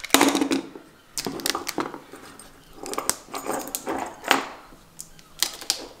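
Utility knife cutting the outer PVC sheath of steel wire armoured cable and the sheath being worked off over the steel armour wires: about five short rasping strokes with brief pauses between.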